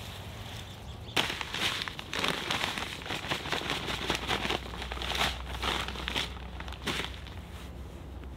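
A bag crinkling and rustling in a run of irregular bursts as it is handled, starting about a second in.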